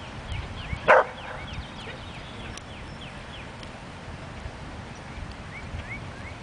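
A border collie gives one short, sharp bark about a second in, over faint repeated chirps.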